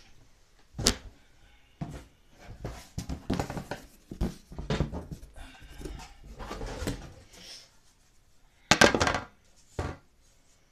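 Irregular knocks, clicks and rustling of handling close to the microphone, with a louder rustling bump just before nine seconds in.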